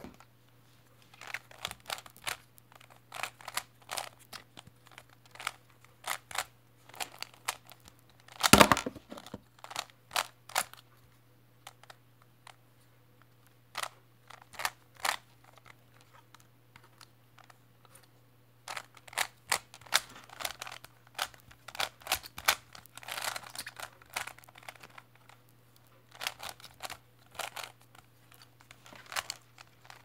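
Plastic Rubik's cube clicking and clacking as its layers are turned by hand in quick runs of moves with short pauses, and one louder knock about eight and a half seconds in.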